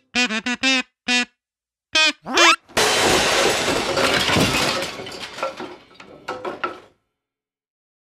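Cartoon logo sound effects: a run of short pitched squeaky blips, a rising whistle-like glide, then a crackling, shattering burst that fades away over about four seconds.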